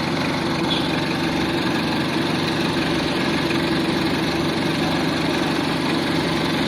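Mitsubishi L300 engine running steadily at an even speed.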